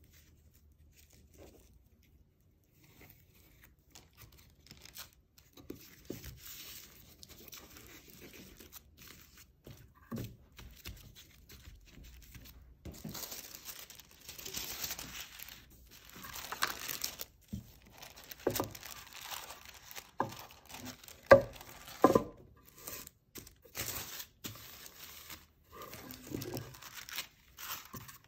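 Tissue paper rustling and crinkling in irregular bursts as it is handled, laid on and pressed down by hand, with a few sharp knocks, the loudest a little past the middle.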